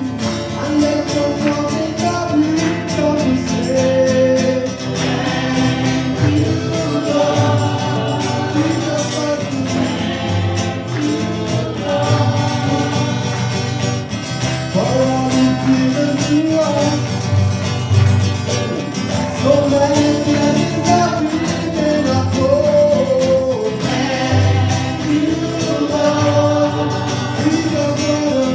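Gospel worship song: several voices singing together over a band with guitar, a steady beat and bass.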